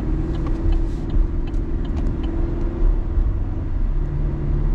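A vehicle driving along steadily: low engine and road rumble with a constant hum.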